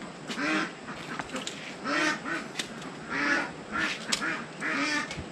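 Poultry calling in four short, loud bouts, each about half a second long and roughly one every second and a half, with a few sharp clicks in between.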